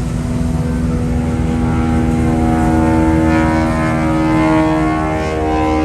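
Sea Ray 310 Sundancer cabin cruiser running at planing speed: a steady engine drone over a low rumble of wind and water, the engine tone growing stronger about halfway through.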